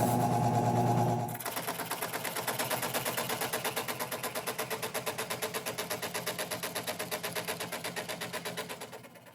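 WEN 3922 16-inch scroll saw running, at first with a steady motor hum. About a second in the blade starts cutting the workpiece, giving a rapid, even chatter of blade strokes as the workpiece bounces on the table. The sound stops near the end.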